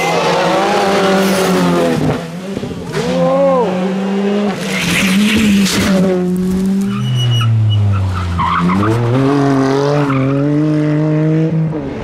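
Rally car engine at full throttle, its pitch climbing and dropping repeatedly with gear changes and lifts, with tyres scrabbling and loose gravel and debris spraying as the car passes close by.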